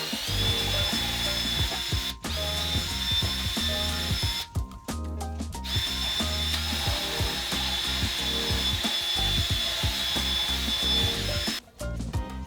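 Handheld electric power tool, drill-like, running with a high steady whine that spins up at the start; it runs in three stretches, the last about six seconds long, over background music.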